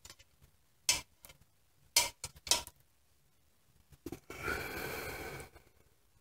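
Metal parts being handled: three sharp metallic clinks within about two seconds, then a soft hiss lasting about a second.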